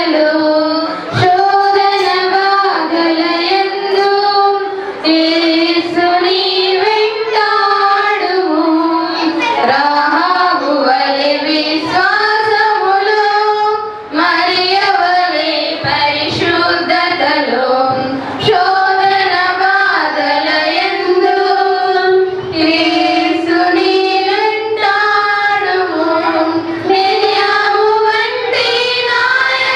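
A high female voice singing a church song in long, wavering melodic phrases, with brief breaks for breath between lines.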